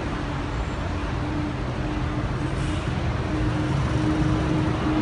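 City street traffic: vehicle engines running with a steady low hum over road noise.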